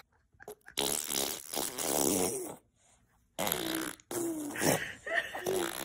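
Baby blowing raspberries, buzzing its lips in several bursts. The longest comes about a second in and lasts almost two seconds, then three shorter ones follow with bits of the baby's voice mixed in.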